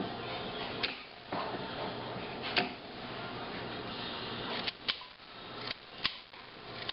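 Clever Cutter scissor knife snipping baby carrots, its blade closing on the plastic cutting board in about six sharp clicks, over a steady hiss.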